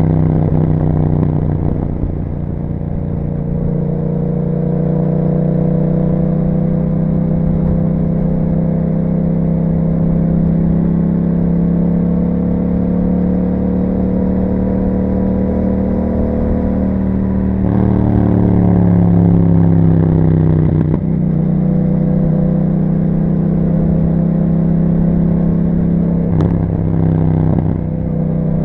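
2021 Yamaha MT-07's 689 cc parallel-twin engine running through an Akrapovic exhaust while riding. The engine note rises and falls gently, with two abrupt breaks in pitch a little past the middle.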